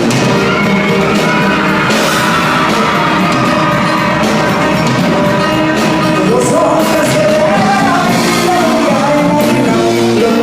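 Loud live band music with a singer's voice carrying the melody.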